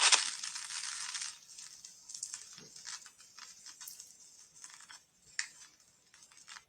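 A record player's stylus dropping onto a vinyl LP: a sudden burst of dense crackle for about a second and a half, thinning into scattered surface pops and clicks.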